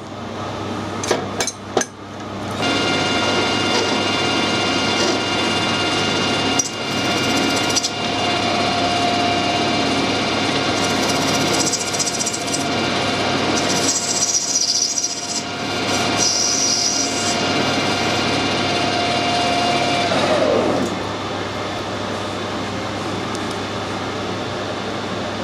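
Metal lathe turning down the end of a brass part: after a few clicks of handling, the lathe starts about two and a half seconds in and runs with a steady whine over the noise of the cut, then winds down with a falling pitch near the end.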